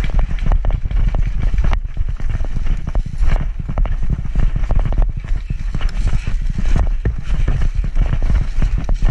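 Quick, uneven footfalls and rustling undergrowth as a person runs through brush, with wind rumbling on the microphone throughout.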